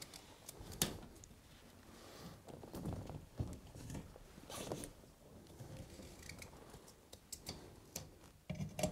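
Faint handling sounds: light rustles and scrapes with a few small clicks as a hand moves over a bait waiter tray and its bait tubs.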